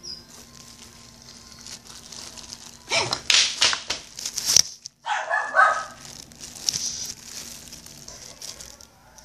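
A clear plastic glove crinkling and rustling right at the microphone, in loud bursts about three to six seconds in and more softly after.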